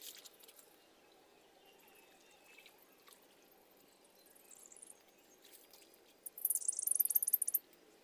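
Water splashing and sloshing as a man gropes with his hands in a shallow muddy pool for fish, with a short crackly burst of splashing about six seconds in.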